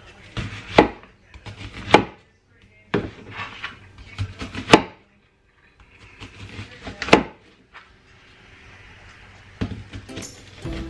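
Chef's knife slicing a peeled onion into rounds on a thin plastic cutting mat, each cut ending in a sharp knock of the blade on the board. The knocks come irregularly, a second or more apart.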